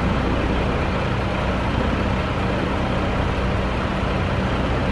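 Diesel engine of a KTR700 series railcar idling at a standstill: a steady low hum.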